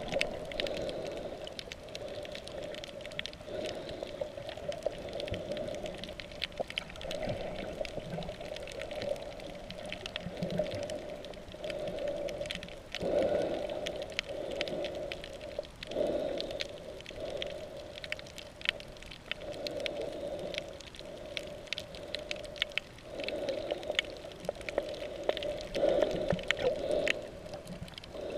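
Muffled underwater sound heard through a camera's waterproof housing while snorkelling: a steady low rush of water that swells every few seconds, with scattered sharp clicks throughout.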